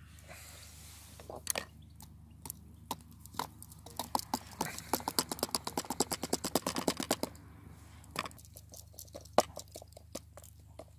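Penknife cutting pumpkin on a plastic chopping board: scattered knocks and clicks, with a fast run of chopping taps, about eight a second, for roughly three seconds in the middle.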